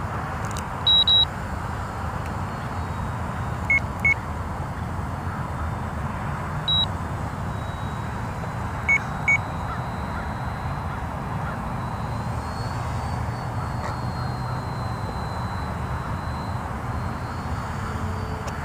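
Short electronic beeps: a pair of high beeps about a second in, lower paired beeps a few seconds later and again near the middle, and one more high beep between them. They sound over a steady low outdoor rush.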